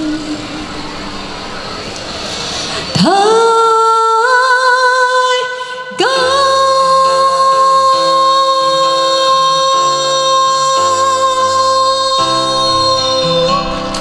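A woman singing the drawn-out closing notes of a Mandarin pop ballad over electronic keyboard chords. About three seconds in she scoops up into a sung note. At six seconds she starts a final note with vibrato that holds for about seven seconds while the chords change beneath it.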